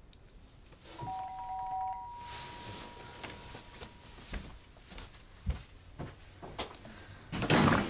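A two-note electronic chime sounds about a second in: the lower note stops after about a second, the higher one holds about two seconds. A few light clicks follow, and a short loud noise comes near the end.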